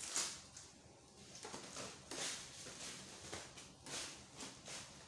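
Wet afang leaves rustling against the fabric of an upturned umbrella as a hand spreads them out, a series of soft, irregular brushing rustles.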